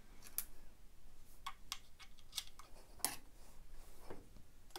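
Irregular small clicks and taps of a hand screwdriver and screws against the plastic motor housing of a Makita DUC356 cordless chainsaw as a screw is set and driven in.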